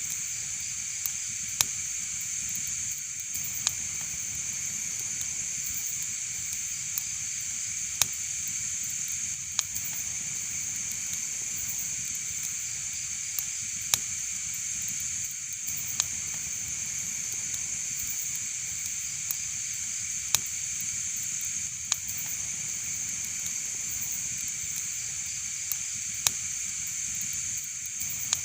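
Wood fire in a fireplace crackling: a steady high hiss with irregular sharp pops every second or few.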